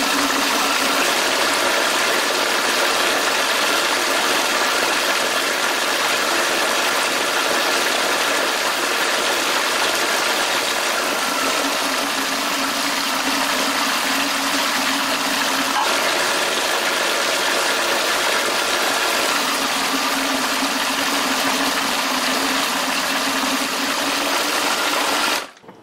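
Food processor motor running steadily while puréeing cooked cauliflower into a creamy sauce, then switching off suddenly near the end.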